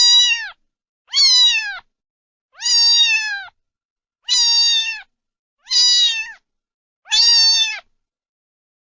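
Domestic cat meowing over and over: six separate meows about every second and a half, each falling in pitch at the end.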